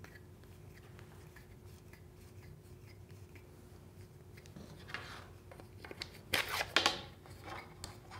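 Quiet handling of a small wooden trammel head: faint clicks as its brass thumb screw is turned in, then a few short scrapes of wood rubbing on wood about six seconds in as the wooden rule is slid through the trammel head's slot.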